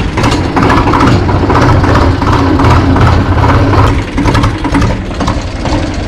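Farm tractor's diesel engine running steadily as the tractor is driven, a loud, even chugging.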